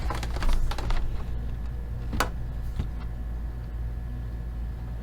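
Small clicks and rustles of hardware being handled over a steady low hum, with one sharp click a little after two seconds and a softer one shortly after.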